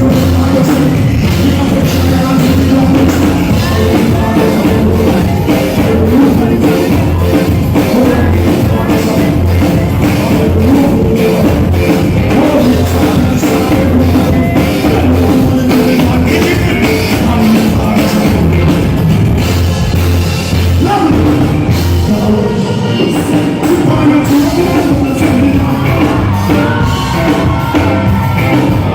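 Loud live dancehall music through a concert sound system: a bass-heavy steady beat with vocals over it.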